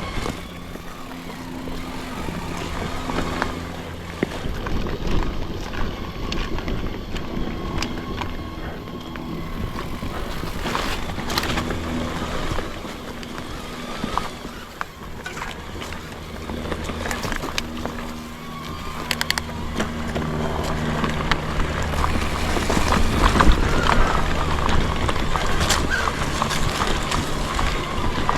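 A mountain bike rolling along a forest singletrack trail, with frequent sharp knocks and rattles over the rough ground and a steady low hum that shifts pitch every few seconds. It gets louder in the second half.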